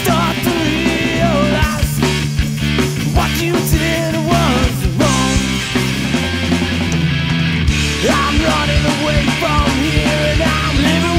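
Background rock song in a punk style, with electric guitars, drums and singing.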